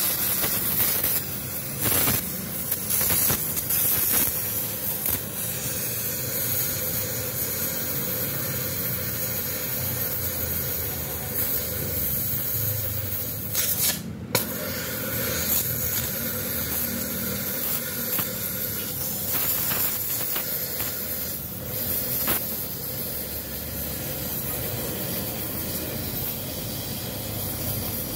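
Gas cutting torch hissing steadily as its flame cuts through the internal baffle of a Yamaha Vixion R motorcycle muffler. A few short, louder pops stand out, the clearest about two, four and fourteen seconds in.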